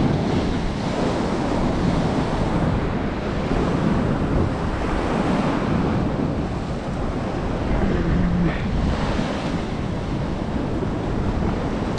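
Sea surf washing against shore rocks, with wind buffeting the microphone: a steady rushing.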